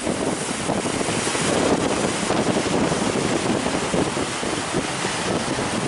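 Wind buffeting the microphone over the steady rush of sea surf.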